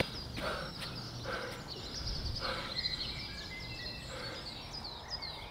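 Small birds chirping busily in short falling calls, with a man panting hard for breath after running, a breath roughly every second.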